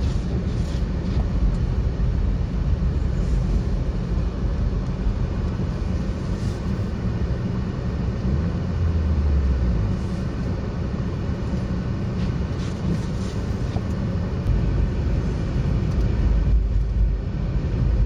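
Car driving over a snow-covered road, heard from inside the cabin: a steady low rumble of engine and tyre noise.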